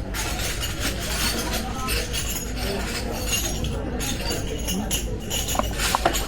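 Busy dim sum restaurant din: dishes and cutlery clinking and rattling over a steady hubbub of the room, with a couple of ringing clinks near the end.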